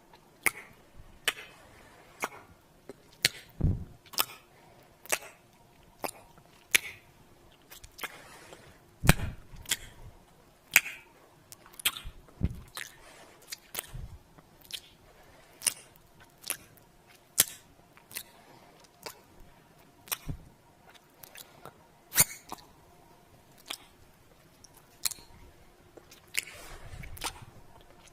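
A long run of kiss sounds: wet lip smacks as short, sharp pops, irregularly about one or two a second, a few of them with a soft low thud.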